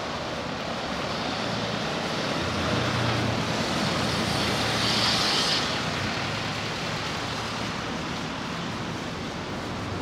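Road traffic: a car drives past, growing louder from about two seconds in to a peak around five seconds with rising tyre noise, then fading back into a steady background hum of traffic.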